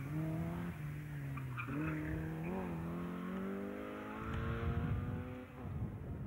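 Modified Group H slalom car's engine revving hard through the course, its pitch dipping at gear changes about one and two seconds in, then climbing steadily as the car accelerates, before the engine note falls away about five and a half seconds in.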